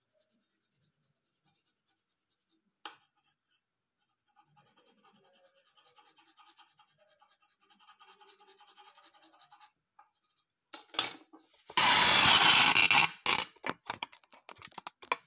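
Colored pencil scratching faintly on paper as yellow is shaded in. About twelve seconds in come a few sharp knocks and a loud noisy rustle and scrape lasting about a second, the loudest sound here.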